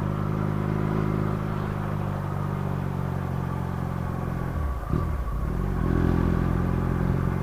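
Motorcycle engine running steadily while riding along, heard from the rider's seat; about two-thirds of the way through the engine note drops sharply and climbs back within a second before settling again.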